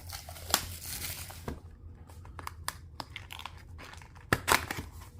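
Packaging of a trading card box being handled, the plastic wrap crinkling and tearing, with a few sharp taps, the loudest just past four seconds in.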